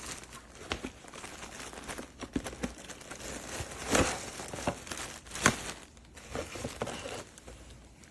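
Handling noise: irregular crinkling rustles with scattered sharp clicks and knocks, the two loudest about four and five and a half seconds in. The hair dryer is not running.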